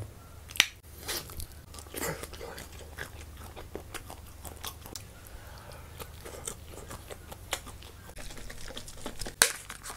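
A person biting into and chewing a cooked shrimp, with a sharp crunch about half a second in and many small crunching and chewing clicks after.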